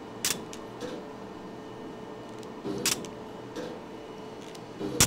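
Laser hair-removal handpiece firing pulses against the skin: sharp clicks every couple of seconds, some with a short low beep, over the steady hum of the laser unit.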